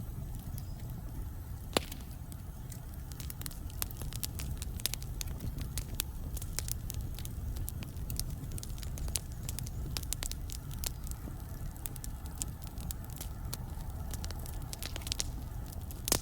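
Wood fire burning in a fireplace: a steady low rumble of the flames with frequent sharp crackles and pops from the burning logs, one louder pop about two seconds in.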